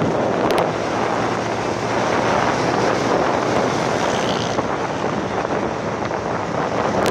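Steady rush of wind and road noise heard aboard a moving vehicle, with wind buffeting the microphone.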